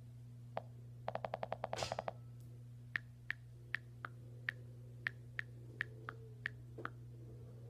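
A run of small sharp clicks: a quick burst of about ten about a second in, then single clicks at roughly three a second, over a low steady hum.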